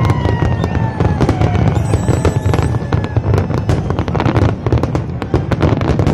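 Fireworks display: a rapid, continuous barrage of bangs and crackles, with a few whistles falling in pitch near the start.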